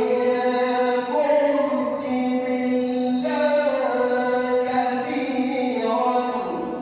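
A male reciter chanting the Quran in melodic tajweed style, in one unbroken phrase of long drawn-out notes that step up and down in pitch several times.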